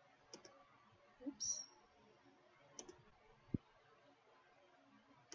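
Computer mouse double-clicks, three pairs spaced about two and a half seconds apart. A short hissy noise comes about a second and a half in, and a single low bump about three and a half seconds in.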